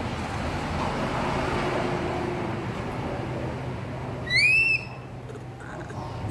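A baby monkey gives one short, whistle-like call about four seconds in, rising and then falling in pitch, the loudest sound here. Under it runs a steady low background hum.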